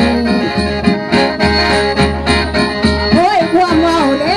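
Traditional folk music for a spirit-medium dance: a steady drone under frequent percussion strikes with a bell-like ring, about three a second. A voice holds a low note that ends just after the start and comes back with a wavering, gliding line about three seconds in.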